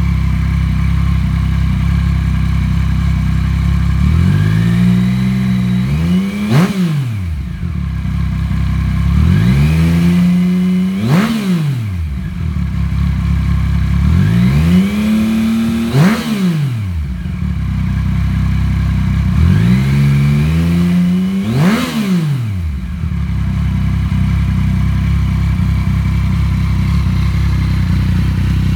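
2015 Yamaha FZ-09's 850cc cross-plane-crank triple with a Scorpion aftermarket exhaust, idling in neutral and revved four times. Each rev climbs, holds briefly, then drops back to idle, about five seconds apart.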